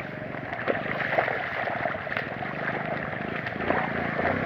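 Small motorcycle engine running as it rides through floodwater, with water splashing and rushing around the wheels.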